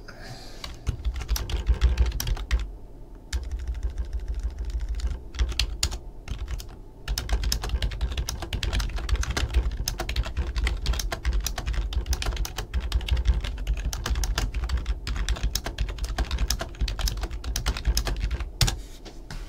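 Typing on a computer keyboard: a fast, irregular run of key clicks with short pauses, over dull low thuds on the desk.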